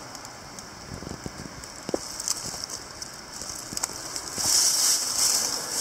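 Dry fallen leaves crackling and rustling underfoot as someone steps through leaf litter, with scattered small crunches over a steady hiss that grows louder near the end.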